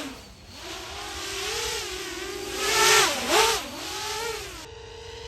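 A 10-inch FPV quadcopter's motors and props whining in flight, the pitch rising and falling with the throttle, with quick dips about three seconds in. Near the end the sound changes suddenly to a steadier, slightly higher whine.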